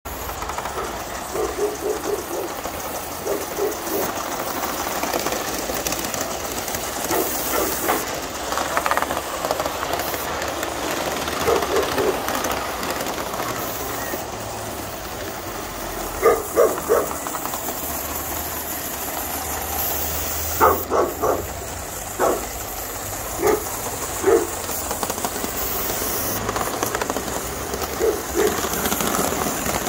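Live-steam model NSWGR C38 class locomotive running with a train of model coaches: a steady hiss of steam, broken every few seconds by short clusters of quick clicks from the wheels running over the track.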